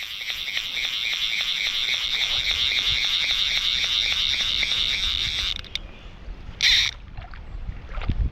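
Click-and-pawl fly reel buzzing in a rapid, even run of clicks as a hooked fish pulls line off it, cutting off suddenly about five and a half seconds in. A short loud burst of noise follows about a second later.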